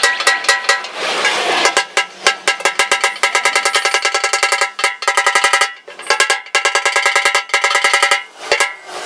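Fast runs of hammer blows on the sheet-steel motorcycle fuel tank as its dents are beaten out, each blow ringing, about six a second, with two short pauses.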